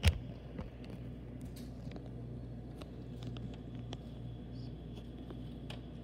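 A single sharp knock right at the start, then a steady low room hum with faint scattered clicks.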